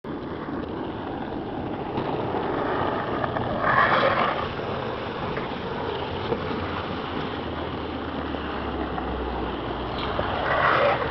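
Longboard wheels rolling on asphalt down a street, a steady rush mixed with wind noise on the microphone, with two louder swells about four seconds in and near the end.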